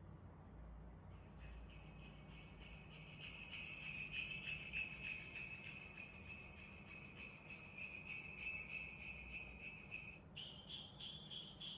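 Small bells jingling in a rapid, steady sleigh-bell shake starting about a second in, with the ringing shifting to a higher set of tones about ten seconds in.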